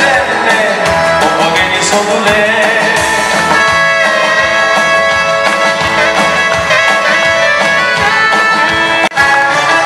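Live band playing an oldies song with a singer, recorded from the audience. A brief dropout in the sound about nine seconds in.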